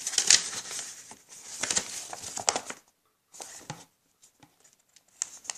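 Paper rustling as the pages of a printed manual are handled and turned, in several bursts with a few light clicks near the end.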